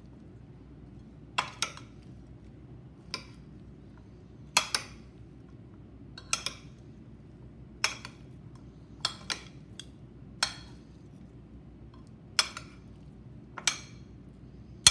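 Two metal spoons tossing salad in a bowl, clinking against the bowl and each other. The sharp, brief clinks come irregularly, about one a second, some in quick pairs.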